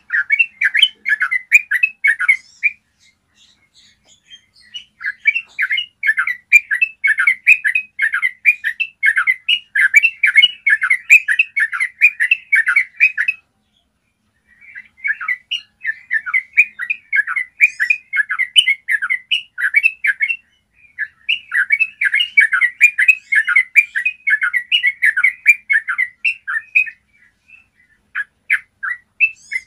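Yellow-vented bulbul singing long, rapid rolling phrases of clear chattering notes, in runs of several seconds broken by short pauses.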